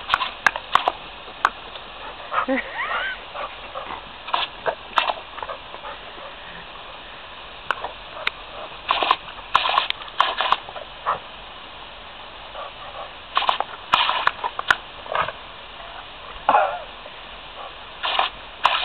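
Labrador biting and snapping at the spray from a garden hose: a steady hiss of running water broken by irregular bursts of splashing and snapping, bunched in several flurries. A short wavering dog whine comes about two and a half seconds in.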